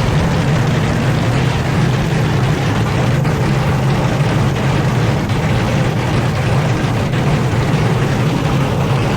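Old Hotpoint washing machine running hard on a spin cycle. It makes a loud, steady rumble with a strong low drone and rattling noise throughout.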